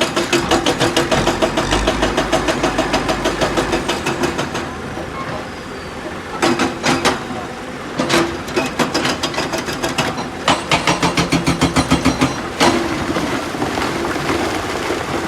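Hydraulic rock breaker on a Tata Hitachi EX 210 LC excavator hammering stone in rapid runs of blows, several a second, over the steady run of the excavator's diesel engine. A long run of blows at the start, then shorter runs about six, eight and ten to twelve seconds in.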